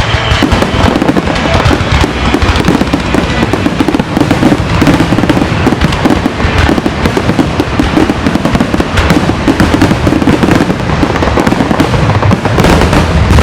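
Fireworks going off in a rapid, continuous run of bangs and crackles, loud throughout.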